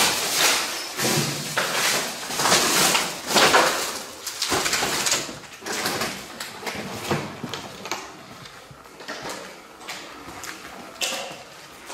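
Irregular scraping, crunching and rustling of someone moving over debris with the camera in hand, loudest and densest in the first five seconds, then fainter and more scattered.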